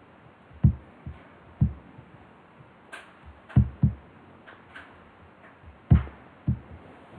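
Dull, low thuds of computer mouse clicks and key presses, several at irregular intervals, with a few sharper clicks among them.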